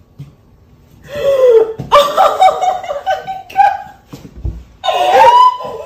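A man and a woman laughing loudly, starting about a second in, with a high-pitched held laugh near the end.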